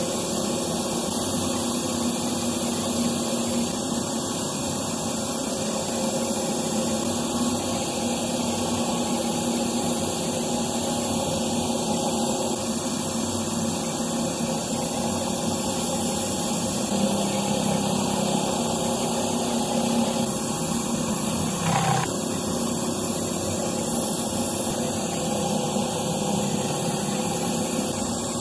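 Pressure washer surface cleaner spinning over wet concrete: a steady spray hiss with the pressure washer's engine and pump running underneath. One brief knock about three-quarters of the way through.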